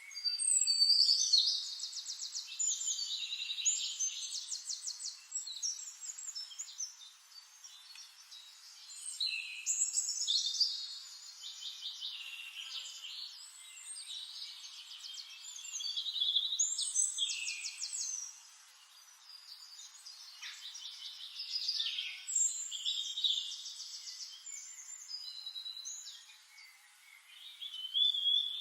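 A songbird singing long, varied phrases full of rapid trills and high chirps, a new burst of song every few seconds with short lulls between.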